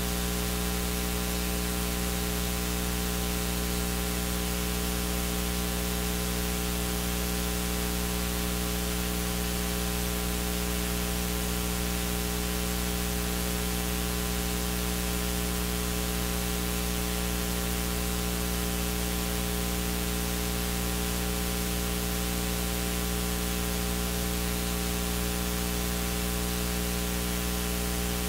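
A steady electrical hum with many stacked tones under a constant hiss, unchanging throughout: mains hum and noise on the sound system's feed.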